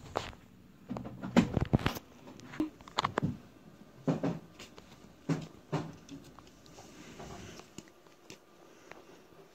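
Irregular rustles and clicks of soft towels being handled, the loudest cluster about a second in, then fewer and fainter.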